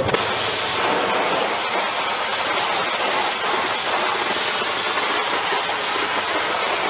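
Oxy-fuel heating torch burning with a steady, even hissing rush as its flame preheats the steel tank sprocket before welding, to keep the temperature difference between weld and metal down.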